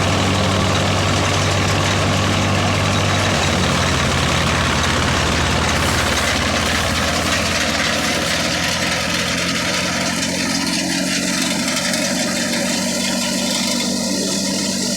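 Engine-driven wheat thresher running: a steady engine note under the machine's dense rushing noise. The engine note shifts slightly about three and a half seconds in, and the rushing noise thins out about halfway through.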